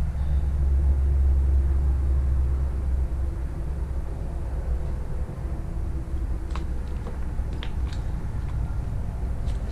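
A steady low rumble, heaviest for the first three seconds and then easing a little, with a few faint ticks in the second half.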